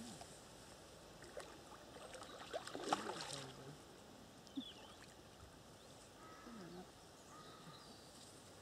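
A hooked carp splashing briefly at the surface close to the bank as it is played toward the landing net, a short flurry of splashes about three seconds in. Otherwise a quiet lakeside background.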